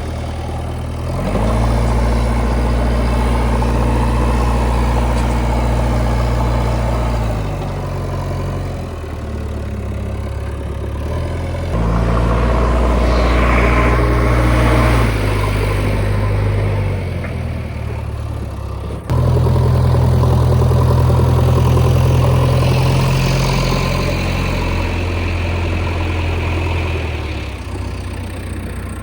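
Heavy diesel engine of an earthmoving machine running and working. Its revs and loudness step up and down every few seconds as load comes on and off, with a sudden jump about two-thirds of the way through.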